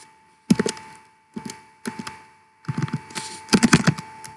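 Computer keyboard typing: several short bursts of keystrokes as a short label is typed in, over a faint steady tone.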